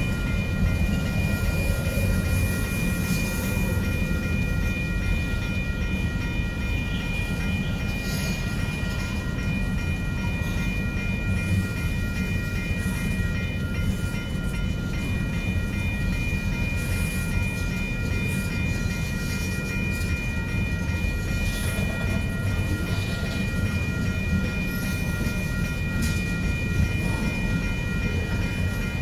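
Freight cars, covered hoppers and tank cars, rolling past on the rails: a steady low rumble of steel wheels with occasional clacks. A steady high-pitched ringing tone runs over it.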